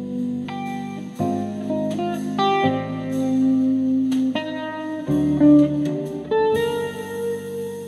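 Jazz quartet recording featuring a Steinway grand piano, played back through a small 3D-printed full-range bookshelf speaker and picked up by a microphone in front of it. The notes and chords change about every second.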